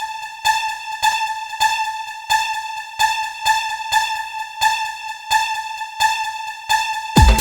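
Electronic dance music: a single high synthesizer note pulses in a steady, even rhythm with no bass. Near the end a heavy kick drum and the full beat come in.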